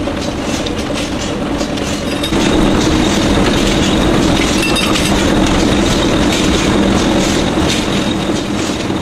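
Automatic matchstick-making machine running: a steady, rapid mechanical clatter over a hum, getting louder a little over two seconds in.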